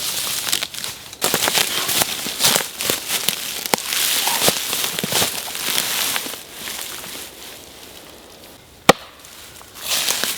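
Dry wood and brush being worked by hand: dense crackling and cracking for about five seconds, then quieter, with one sharp knock near the end.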